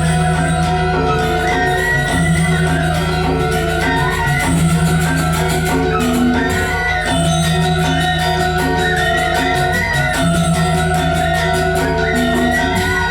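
Balinese gamelan music: bronze metallophones and gongs play a dense, even pulse over sustained ringing tones.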